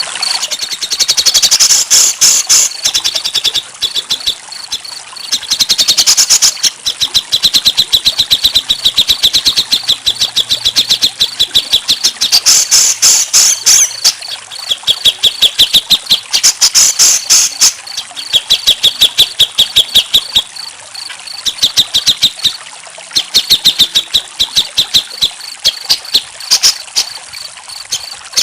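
Crickets chirping in fast, even pulsed trills, coming in stretches of a second or two, with higher-pitched pulsed bursts every few seconds.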